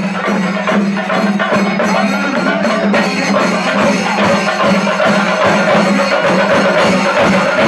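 Traditional Kerala temple-festival ensemble playing: fast, dense drumming with hand cymbals over a steady held wind-instrument tone.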